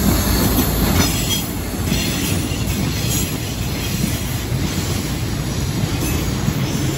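A freight train of covered hopper wagons rolls past behind a pair of Dv12 diesel-hydraulic locomotives, making a steady low rumble of wheels on the track. A few wheel clicks over rail joints come about a second in.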